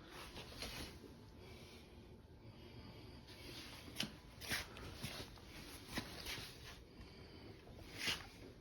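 Faint footsteps and handling rustle during a walk around a bike: about seven short, soft scuffs spread irregularly over a quiet background.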